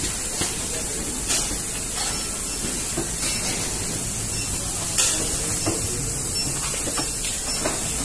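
Steady hiss and low hum of an automated screw-tightening and testing line running, with several sharp clicks, the loudest about five seconds in.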